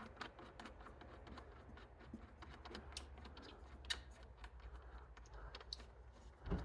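Faint, irregular small metallic clicks and ticks as the blade screw of a mower is threaded in by hand and the blade parts are handled, with one sharper click about four seconds in.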